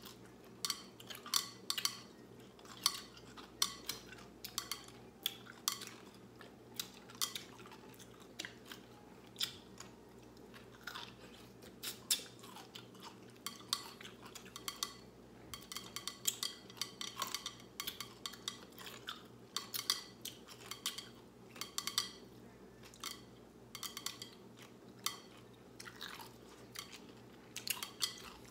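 Two people chewing whole pickles with their mouths close to the microphone: irregular crisp crunches and wet mouth clicks, several a second.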